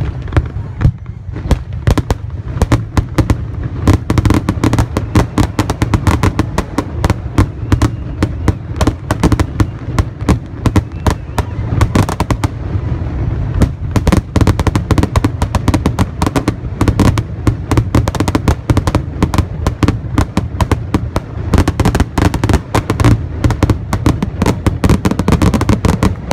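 Fireworks finale barrage: aerial shells bursting in a dense, rapid string of bangs and crackles, many a second without a pause.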